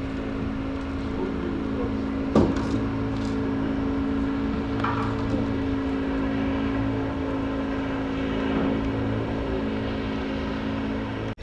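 An engine running at a steady pitch, with one sharp knock about two seconds in; the sound cuts off abruptly near the end.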